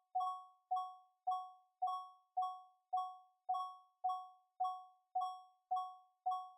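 Electric doorbell's striker hitting the bell cup over and over, a little under two strikes a second. Each strike is a clear two-tone ding that fades quickly before the next.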